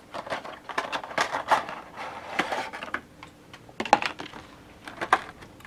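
Plastic packaging and cardboard of a Funko Pop box handled by hand as the bagged vinyl figure is pulled out, crinkling and crackling. There is a dense run of crackles over the first three seconds, then a few sharp clicks about four and five seconds in.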